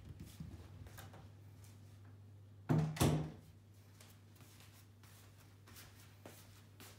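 Footsteps in house slippers on a wooden floor, with two loud knocks in quick succession about three seconds in, over a steady low hum.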